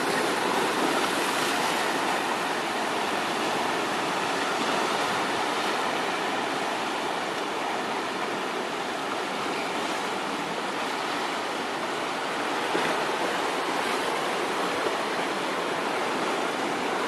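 Ocean surf breaking over rocks and washing up a sandy beach: a steady rushing wash of water.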